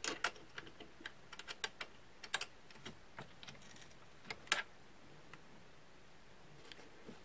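Irregular small metal clicks and ticks of a hex key being worked in the clamp screw of an aluminium router mount, tightening it around the router; the sharpest click comes about four and a half seconds in, and the clicks thin out after that.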